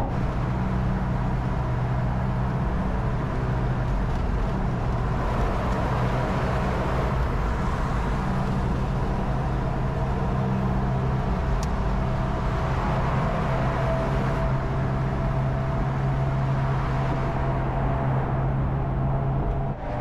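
Hummer H1 cruising at freeway speed with the top down: a steady low engine drone under wind and road noise.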